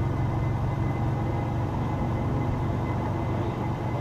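Mitsubishi Pajero's 3.0-litre V6 engine running steadily at low revs, a constant low drone with no revving.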